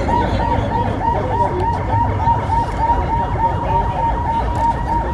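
Emergency sirens on convoy escort vehicles warbling fast, about five cycles a second, with more than one siren overlapping, over a low rumble.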